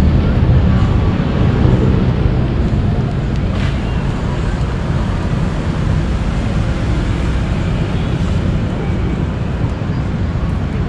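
Steady low rumble of outdoor city noise by a river, with faint voices of passers-by.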